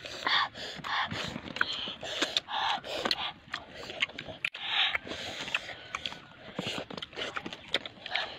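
Close-up eating sounds of children eating with their fingers: irregular lip-smacking and chewing, short breathy sniffs and gasps, and scattered small clicks.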